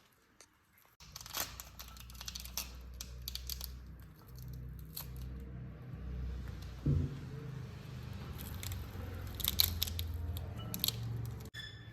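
Background music with scattered sharp clicks and crinkling handling noises.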